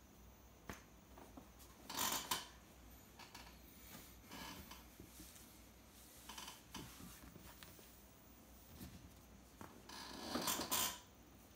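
Faint rubbing and scraping from hands handling a plastic bulb camera, with two louder scrapes about two seconds in and near the end, and a few softer ones between.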